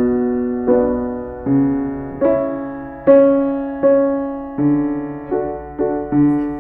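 Solo piano playing a slow, gentle passage of chords, each struck and left to fade, roughly one or two a second.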